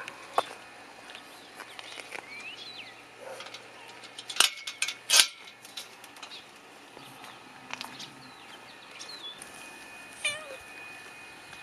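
A domestic cat gives a short meow that drops in pitch near the end, with thin chirps now and then and two loud knocks about halfway through.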